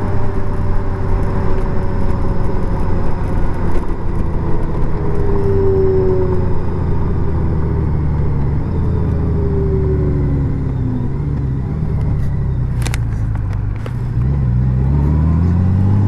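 Honda Gold Wing's flat-six engine running at road speed under wind and road noise. Its pitch falls as the bike slows, a click comes late on, and the engine note rises again as it accelerates near the end.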